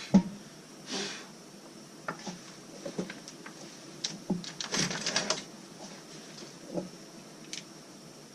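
Scattered knocks and clicks of tools and wire being handled at a workbench during soldering: a thump just after the start, a short rush about a second in, and a quick cluster of clicks around the middle.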